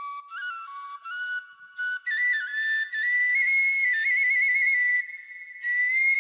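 A flute playing a solo melody in short notes that climb in pitch. After about two seconds it turns into louder held notes decorated with quick trills.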